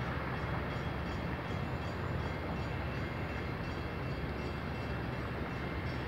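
Steady low rumble of idling vehicle engines, with faint steady high tones above it.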